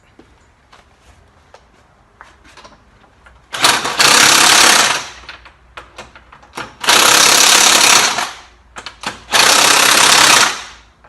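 Impact wrench hammering in three bursts of about a second each, tightening the wheel's lug nuts, after a few seconds of faint clicking.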